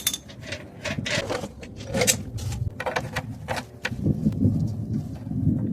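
Irregular clicks and metal clatter of hand tools and bolts, as bolts are taken off one motorcycle fender to go onto another, with a denser low rattle near the end.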